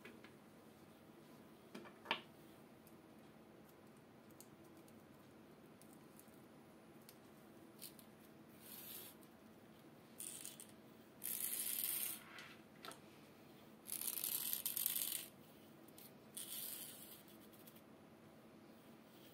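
Handling noise from plastic aquarium air tubing and suction-cup fittings. There is a sharp click about two seconds in, then several short rustling hisses of plastic rubbing and sliding, the longest two near the middle.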